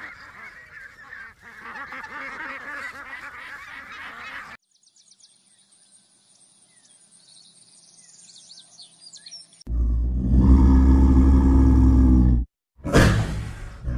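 A flock of domestic ducks calling and quacking together for about four and a half seconds, then a quieter stretch with faint high chirps. About ten seconds in, a loud, low-pitched animal call runs for about two and a half seconds and breaks off suddenly, followed by a shorter loud call near the end.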